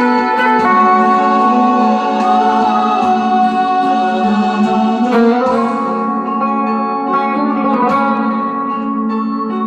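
Guitar playing a slow melody in F minor, with long held notes that waver and bend, over a steady sustained accompaniment.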